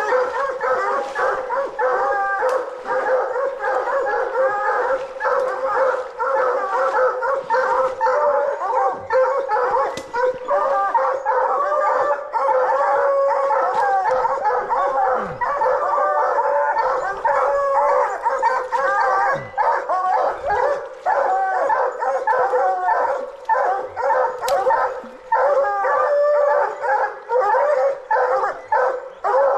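A pack of coonhounds bawling and barking without a break, several voices overlapping: they are barking treed at a raccoon up in the tree.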